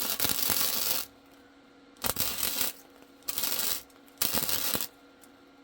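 MIG welder laying four short tack welds on steel, each a burst of arc crackle: the first about a second long, the next three about half a second each, spaced roughly a second apart.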